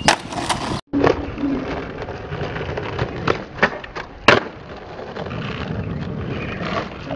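Skateboard wheels rolling over a concrete sidewalk, with several sharp clacks of the board striking the concrete and curb as tricks are tried, the loudest about four seconds in.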